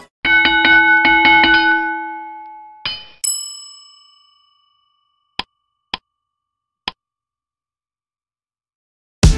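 Sound effects for a subscribe animation. A quick run of about six chime-like notes rings out, then comes a bright bell ding. Three short clicks follow, spaced about half a second and a second apart, matching the cursor pressing the like and subscribe buttons.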